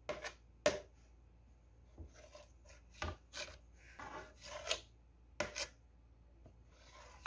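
A kitchen knife slicing a thin sheet of dough into strips on a ceramic plate: an irregular series of short scraping strokes as the blade cuts through and runs against the plate.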